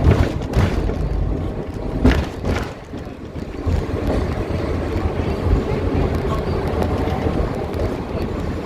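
Hong Kong double-decker tram heard from on board, running along its tracks with a steady low rumble and wind on the microphone, with a few knocks near the start and about two seconds in.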